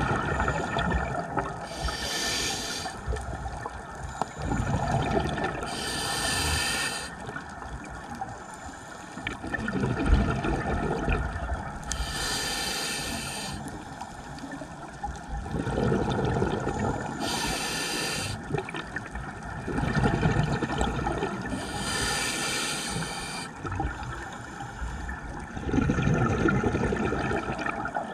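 Scuba diver breathing through a regulator underwater. There are five hissing inhales, roughly five seconds apart, and each is followed by a burst of exhaled bubbles.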